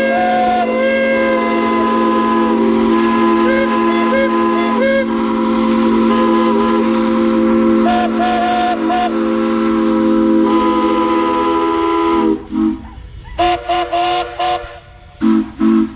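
Several steam whistles blowing together in a long held chord of different pitches. Near the end the chord breaks off into a few short toots.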